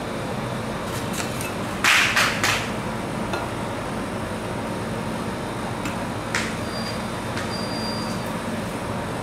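Metal spatula scraping and knocking on the frozen steel pan of a rolled-ice-cream cold plate: a quick run of three sharp scrapes about two seconds in, and another single one around six seconds. Under them runs the steady hum of the cold plate's refrigeration.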